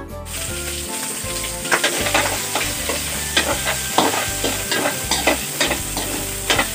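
Garlic sautéing in hot oil in a steel wok, sizzling steadily from just after the start, with a metal ladle stirring and scraping against the wok in quick repeated clinks.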